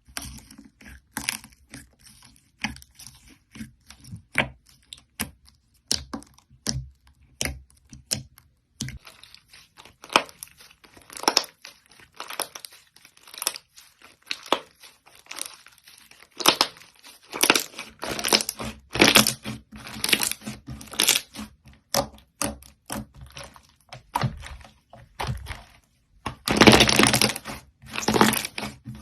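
Slime being worked by hand, giving a string of short crisp crackles and sticky pops. The crackling grows denser and louder near the end.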